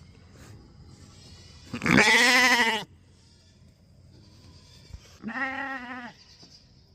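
Dorper sheep bleating twice: one loud bleat about two seconds in, then a shorter, quieter bleat a little after five seconds.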